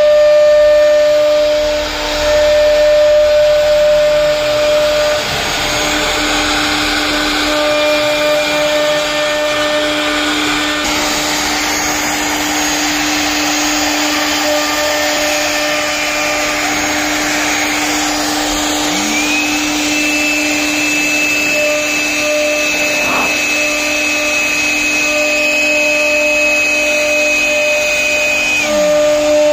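CNC router cutting wood, its motor whining steadily over a noisy hiss. About two-thirds of the way in, a second, higher whine rises, holds steady, and falls away near the end.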